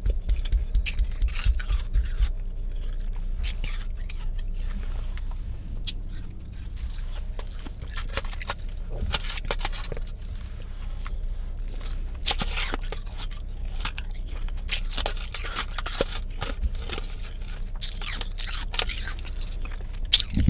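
Powdery freezer frost being crunched and chewed close to the microphone, a dense run of irregular crisp crunches with some scraping. A steady low hum sits underneath.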